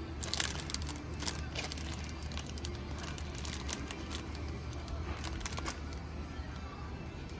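Thin clear plastic bags of packaged toy figures rustling and crinkling in irregular bursts as a hand handles them, over a steady low hum.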